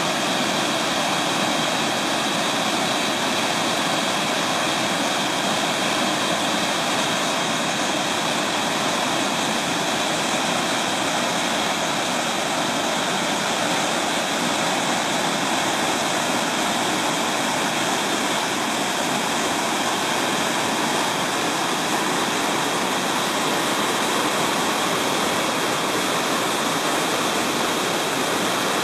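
South Umpqua River waterfall, water pouring over a wide sloping bedrock ledge: a steady, unbroken rush of falling and running water.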